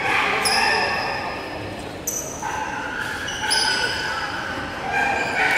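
Spectators in a gym yelling drawn-out cheers, several voices at once, in a few long held calls that echo in the hall.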